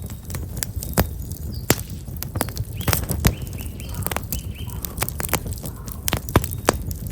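Black locust firewood burning in an open fire, crackling with irregular sharp pops over a low steady rumble. Small birds chirp a few short repeated notes around the middle.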